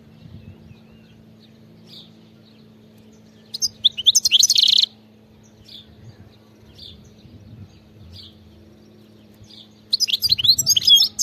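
European goldfinch singing: a burst of fast, twittering song about three and a half seconds in, lasting just over a second, and another starting near the end, with soft single chirps between.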